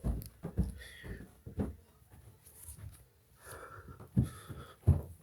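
A person sniffing, snorting and breathing hard through the nose in short, irregular bursts, straining for a sneeze that does not come.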